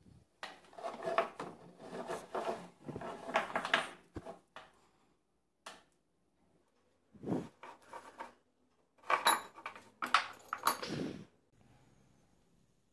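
Old metal tools being handled on a workbench: the vintage power drill picked up and turned over, with irregular clattering, knocks and rubbing in two spells, the second ending about a second and a half before the end.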